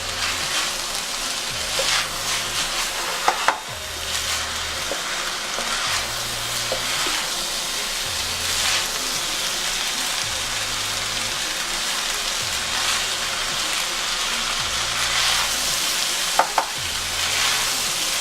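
Fried rice sizzling in a frying pan as it is stirred and tossed, with repeated scraping strokes and two pairs of sharp knocks of the utensil against the pan, about three seconds in and near the end.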